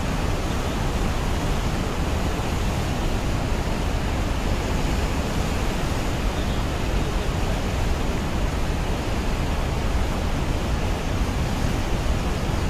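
Floodwater of a swollen river rushing past a bridge: a steady, unbroken rush of water.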